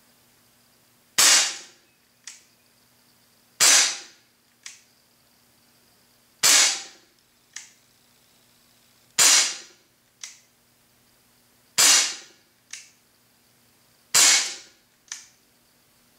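Gamo PT-85 CO2 blowback pellet pistol firing six shots, one every two to three seconds. Each is a sharp crack, followed about a second later by a fainter click.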